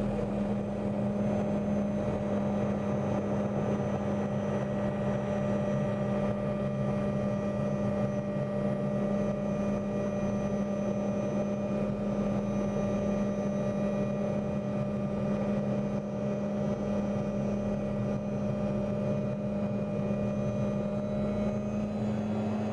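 Helicopter engine and rotor running steadily in flight, heard from inside the cabin as a constant drone with a strong low hum.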